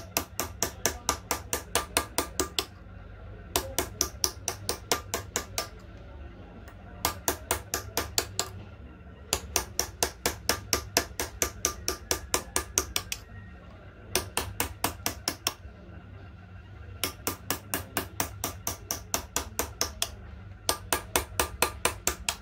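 A small hammer tapping a hand-held steel chisel along the engraved outlines of a brass plate. The taps come quickly and evenly, about seven a second, in runs of one and a half to four seconds with short pauses between.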